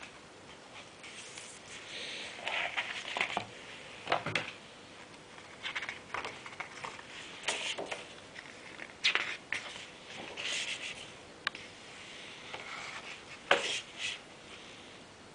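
Pages of a large hardcover book being opened and turned by hand: paper rustling and sliding in irregular bursts, with a few sharp page snaps, the loudest near the end.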